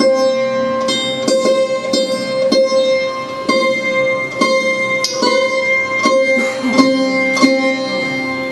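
Sarod playing a slow melody in raag Jhinjhoti, single plucked notes with a slide a little past the middle, over a steady drone.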